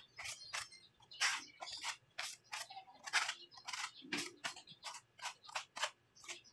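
Quick, rhythmic hand strokes scraping on a wall coated with masilya skim-coat putty, about three strokes a second.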